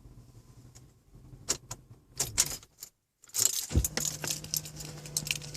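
Keys jangling and clicking in a series of short rattles, with a dull thump about four seconds in.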